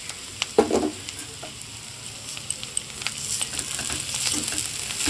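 Chopped spiny gourd and poppy seed paste sizzling in oil in a metal pan, with many small crackles. There is a sharp knock about half a second in. From about three seconds on the sizzling grows louder as a spatula stirs and scrapes the mixture against the pan.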